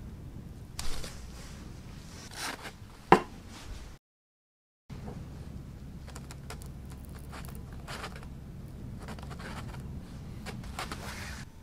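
Styrofoam blocks handled with gloved fingers: scraping and squeaking of the foam, with a sharp click about three seconds in. The sound cuts out for about a second, then lighter, irregular scrapes and rubbing continue.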